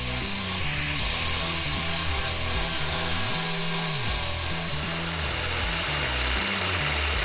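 Angle grinder grinding on a rusty steel truck chassis rail, under background music with a stepping bass line.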